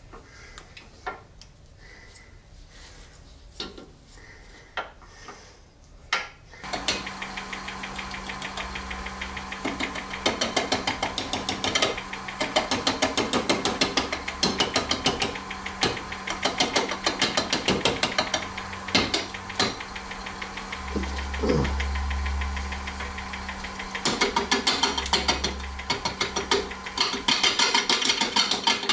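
A few small handling clicks, then about six seconds in a wood lathe switches on and runs with a steady hum. A turning gouge cuts the spinning wood-and-resin hybrid orb, making a fast, continuous chatter of ticks.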